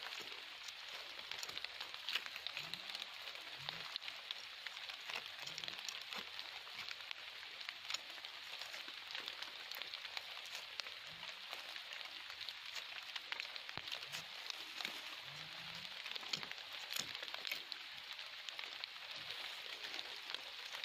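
Light rain pattering steadily as a fine crackling hiss, with small scratches and clicks from a knife digging in the earth around a buried clay jar.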